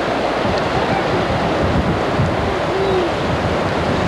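Strong gusty wind blasting across the video camera's microphone as a loud, steady rush with low buffeting. A faint voice comes through briefly about two and a half seconds in.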